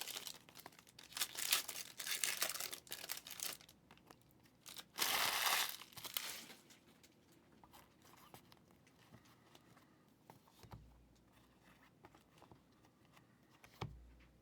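Foil trading-card pack wrappers crinkling and being torn open, with a loud rip about five seconds in. After that comes quieter handling of cards, with a couple of soft thumps.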